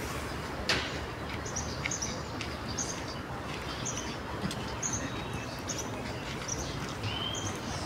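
Bird chirping repeatedly, short high chirps about twice a second over steady outdoor background noise, with a single soft knock a little under a second in.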